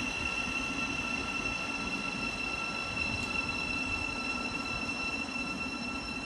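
Electric multiple-unit passenger train braking to a stop, its brakes giving a steady high-pitched squeal over a low rumble from the wheels.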